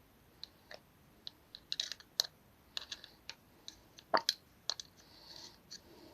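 Light, irregular clicks and small taps, about twenty of them, from hands working around the pistons and gudgeon pins while oiling them.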